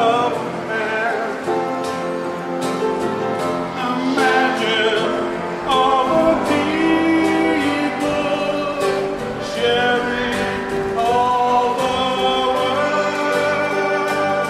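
A group of singers performing a song together, several voices holding long sung notes.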